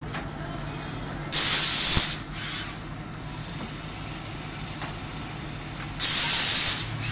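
Pneumatic pouch packing machine running with a steady low hum. Twice, about four and a half seconds apart, it lets out a loud hiss of compressed air lasting under a second, with a sharp click at the end of the first.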